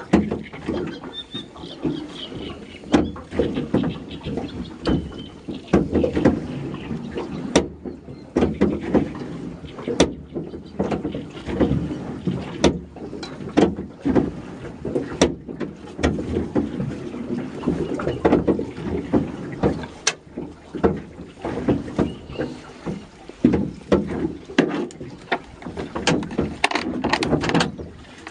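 Gill net being hauled by hand into a metal boat: a steady run of irregular knocks, clatters and rubbing as the net, its line and floats come over the side and drag against the hull.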